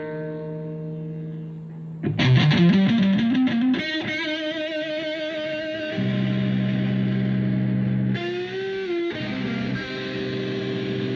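Isolated electric guitar track played through effects: a held chord, then a rising slide about two seconds in, notes with vibrato, and sustained low chords with a brief bend near the end.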